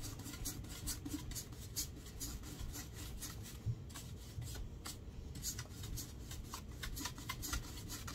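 Bristle paintbrush stroking chalk paint onto a piece of painted furniture: a quick, irregular run of faint brushing scratches.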